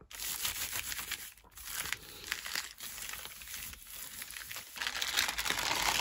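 Brown paper bag crinkling and rustling as it is handled and pressed over an inked gel plate to take a print. It gets louder near the end.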